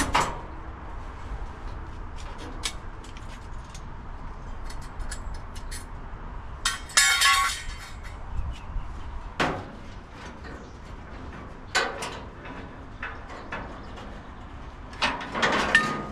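Scattered metal knocks and clanks from hands and tools working inside a bare steel car body shell, with one short, bright, ringing metallic clatter about seven seconds in.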